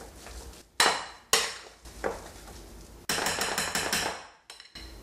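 Metal spoon mixing smashed potatoes in a glass bowl, knocking against the bowl's side. There are two sharp knocks about a second in, then a quick run of clinks and scrapes a little after three seconds.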